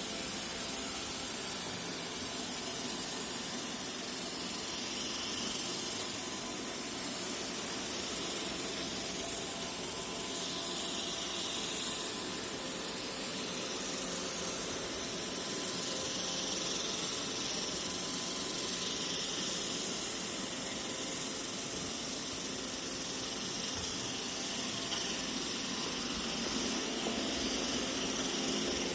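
iRobot Roomba e5 robot vacuum running: the steady hiss and whir of its suction fan and brushes, swelling and easing slightly.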